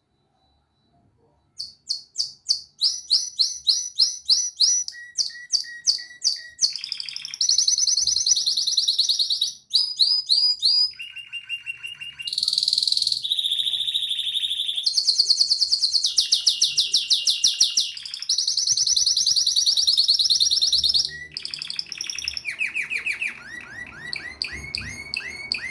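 Domestic canary singing: after a short silence, about a second and a half in, a long continuous song starts. It is made of rapid trills of repeated notes, switching to a new phrase every second or two.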